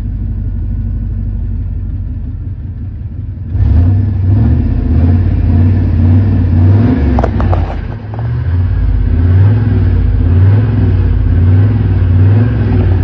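2000 Cadillac Escalade's 5.7-litre V8 running, jumping louder about three and a half seconds in, with its speed wavering up and down. The owner thinks it is running out of gas.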